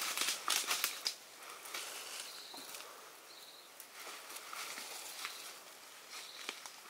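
Footsteps on dry leaf litter, with the rustle and crackle of a long tree branch carried on the shoulder brushing through undergrowth. Dense crackling in the first second, then quieter, scattered twig and leaf sounds.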